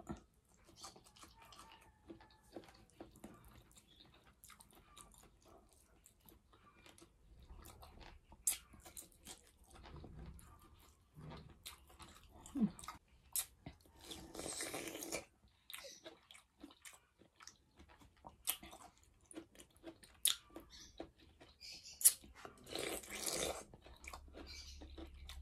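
Close-up chewing and crunching of food eaten by hand, fried tilapia and boiled vegetables with rice: wet mouth sounds with many sharp little crunches. Two longer, hissy crunching stretches come about fourteen and twenty-three seconds in.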